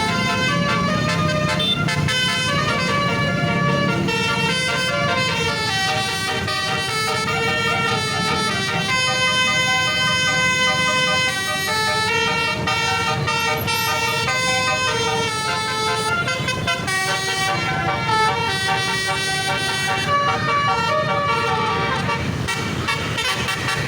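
Indonesian bus basuri horn, a multi-tone telolet horn, playing a long unbroken melody, stepping from note to note with several notes sounding together.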